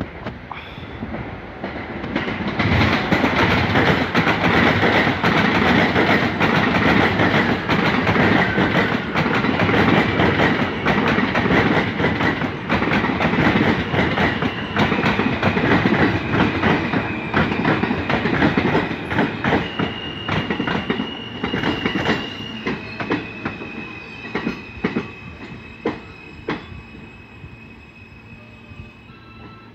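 Vintage New York City subway train passing through the station, its wheels clacking over the rail joints in a dense run of sharp clicks. It swells about two seconds in and fades away over the last several seconds. Steady high-pitched wheel squeal runs through the second half.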